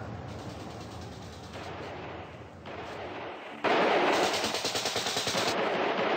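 Rapid, sustained machine-gun fire from an old black-and-white gangster film soundtrack, starting abruptly about two-thirds of the way in after a few seconds of low background noise.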